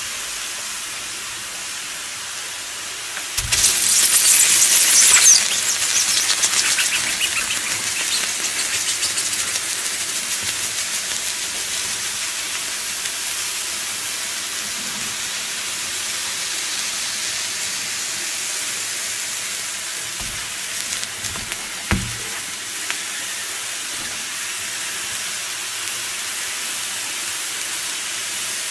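Red-hot metal balls sizzling and hissing as they sear into the flesh of a cut watermelon, steaming its juice. The sizzle flares louder and crackly about three and a half seconds in, then dies back to a steady hiss. There is a short knock about 22 seconds in.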